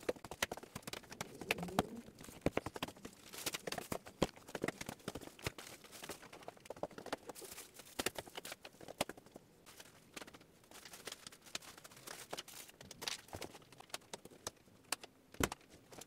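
Irregular light clicks and knocks of belongings being handled and packed into bags, with footsteps on a wooden floor.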